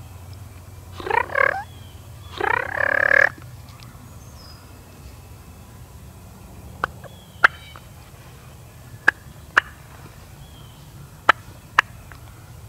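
A wild turkey gobbler gobbling twice, each gobble a rapid rattling call of under a second, the two about a second apart. Later come three pairs of short sharp notes, spaced a couple of seconds apart.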